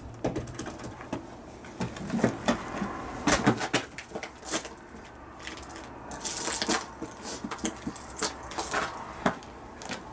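A run of irregular knocks, clatters and thumps, coming in a few clusters.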